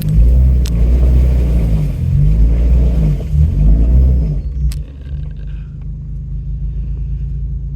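4x4's engine revving up and down as it works over rough trail. About four seconds in it drops back to a steadier, lower running, with a sharp click just after.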